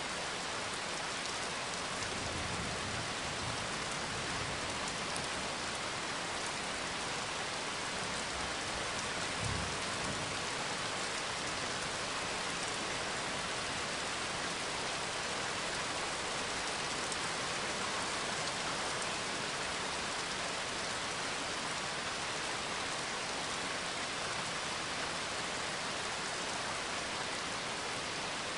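Steady rainfall, an even, unbroken hiss with no rhythm or pitch. A soft low bump about nine seconds in.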